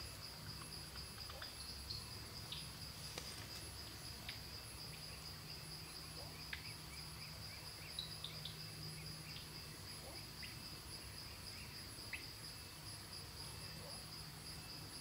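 Insects trilling steadily in a continuous high-pitched chorus, with scattered short chirps and a faint low hum underneath.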